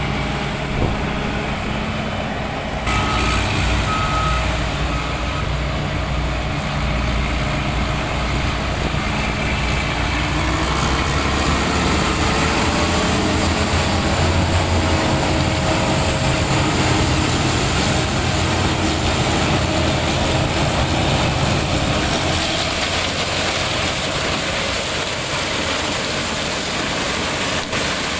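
Heavy vehicle engine running steadily under load, with three short beeps about a second apart a few seconds in.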